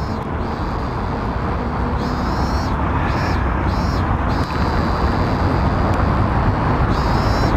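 Outdoor street ambience: a steady rumble of traffic that slowly grows louder, with short high chirps repeating in small groups over it.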